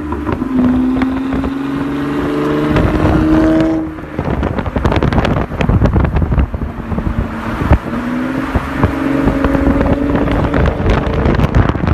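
Car engine pulling up through the revs twice, its pitch rising slowly each time, with wind buffeting the microphone.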